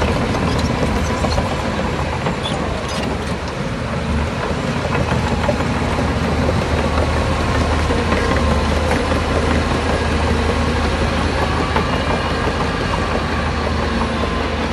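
Heavy diesel engine of earthmoving machinery running steadily, with a few sharp metallic clicks in the first few seconds.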